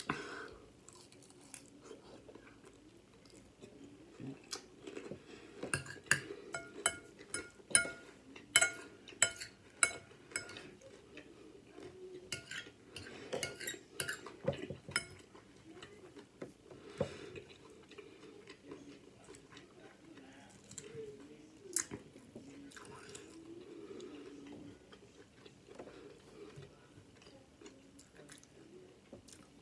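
Close-miked chewing of crispy fried chicken salad, with sharp clinks of cutlery against a dish, most frequent between about five and fifteen seconds in.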